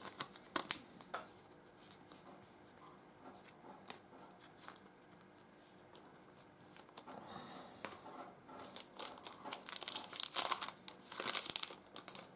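Foil trading-card pack wrappers crinkling as they are handled, with a few light clicks of cards early on. Dense, loud crinkling comes in repeated bursts near the end.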